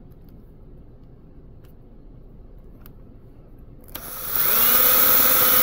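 Electric drill spinning up about four seconds in and running at a steady whine, turning a round-ended punch that flares the end of a brass tube. Before it starts there are only a few faint clicks of handling.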